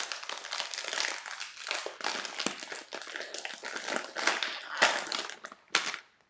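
A wrapper being crinkled and rustled close to the microphone, in irregular crackling handlings that ease off near the end.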